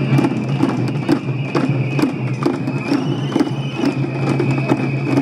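Marchers beating white plastic buckets as drums in a steady unison beat, about two strokes a second, over a steady high-pitched tone.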